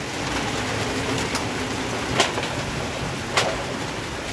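Steady rain falling, with three sharp ticks of single drops striking close by.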